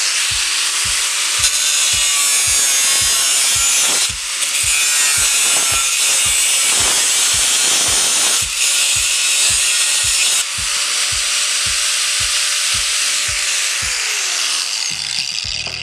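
Bosch GWS 7-115 angle grinder with a thin metal cutting disc cutting through a galvanized steel channel: loud and steady, dipping briefly three times as the disc is eased in the cut, then the motor winds down with a falling pitch near the end.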